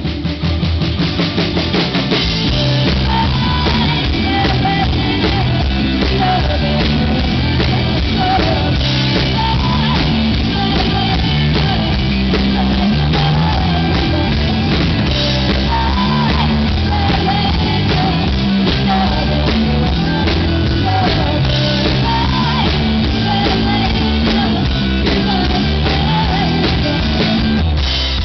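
Live rock band playing loudly: drum kit, guitar and keyboards, with a woman singing into a microphone.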